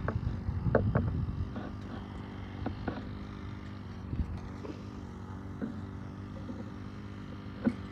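A steady low engine hum, with a few short clicks scattered through it and the sharpest one near the end.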